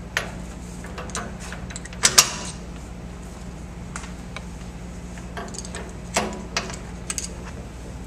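Metal clicks and clacks as steel die segments are fitted into the master dies of a PTS8 crimping press, the loudest a pair of sharp clacks about two seconds in, over a steady low hum.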